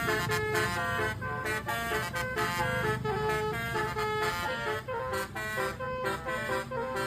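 Bus basuri (telolet) multi-trumpet air horn playing a melody: a continuous run of tooting notes that step up and down in pitch every fraction of a second, several horn tones sounding together, with a low rumble underneath.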